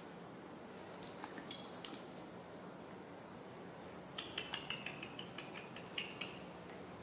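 Light clicks and taps of a puppy's claws and a baby macaque's scrambling on a tiled floor as they play: a few ticks about a second in, then a quick run of about a dozen clicks from about four seconds in.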